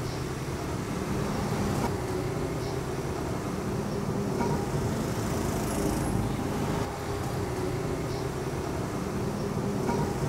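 Steady road traffic noise, with a low hum of vehicle engines.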